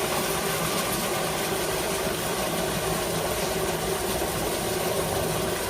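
Heavy factory machinery running steadily: an even mechanical noise with a constant hum that does not change.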